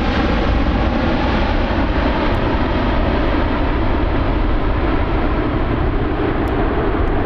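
Airbus A380's four jet engines running steadily at take-off power as the airliner climbs away.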